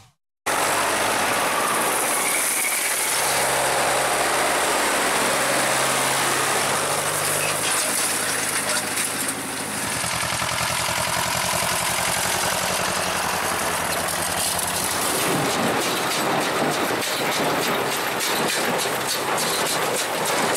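Tractor diesel engines running in a hay field, with wind noise on the microphone and the engine tone shifting between clips. From about fifteen seconds in, a rapid rhythmic mechanical clatter of hay machinery joins the engine.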